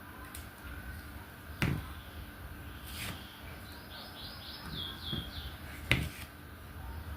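Sharp taps of a diamond-painting pen pressing resin drills onto the canvas, three clicks a second or so apart. Between the taps comes a quick run of about six high, falling chirps.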